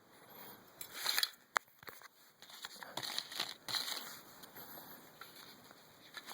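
Hands handling small parts of a homemade shotgun-cartridge tripwire mine: a run of small clicks, taps and crinkling rustles, with one sharp click about one and a half seconds in.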